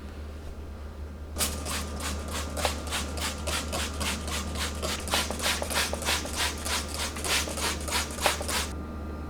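Rhythmic scrubbing strokes, about four a second, starting about a second and a half in and stopping shortly before the end, over a steady low hum.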